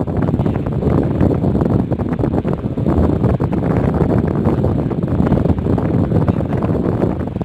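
Loud, steady rumbling of air buffeting the phone's microphone, cutting off abruptly at the end.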